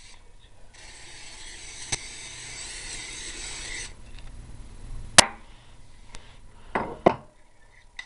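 Aerosol cooking spray hissing in one steady burst of about three seconds, oiling a bowl. Then a few sharp knocks, the loudest about five seconds in.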